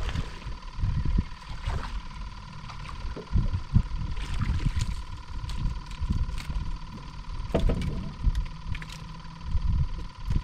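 Gusty wind rumbling on the microphone over a small boat on open water, with scattered sharp clicks and splashes as a small fish is reeled in to the boat.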